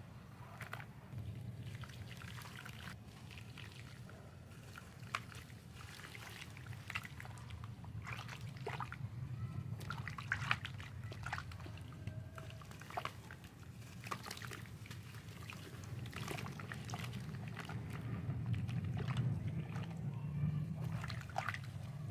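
Chunks of soft sand crumbling and dropping into water, making irregular small splashes, trickles and crackles, over a steady low hum.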